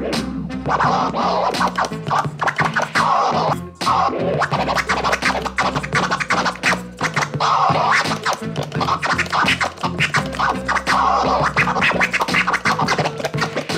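Vinyl scratching on a Numark PT01 Scratch portable turntable: the record is pushed back and forth in quick strokes and cut in and out over a steady looping beat.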